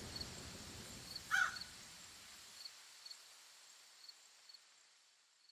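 Faint outdoor ambience with small high chirps about twice a second and one short harsh animal call about a second in, fading out to silence near the end.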